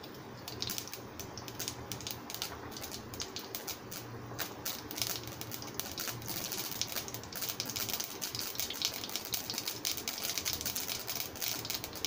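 Mustard seeds popping and crackling in hot oil in a pan, with split urad and chana dal: a rapid, irregular scatter of sharp little pops that grows denser from about five seconds in. It is the tempering (tadka) stage, the seeds spluttering as the oil is hot enough.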